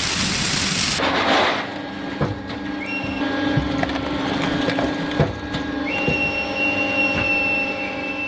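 Recycling-plant machinery handling crushed aluminium cans: a steady mechanical hum with a high whine, with the cans clattering and knocking at irregular moments. For about the first second a loud rushing hiss is heard instead, and it gives way abruptly to the machinery.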